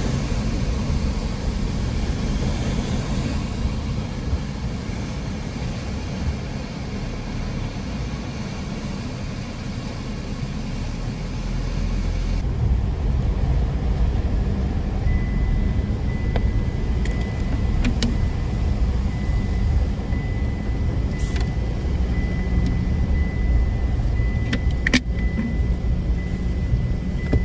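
Car driving, a steady engine and road rumble heard from inside the cabin. The sound shifts abruptly about halfway through. In the second half a faint steady high tone and a few sharp clicks sit over the rumble.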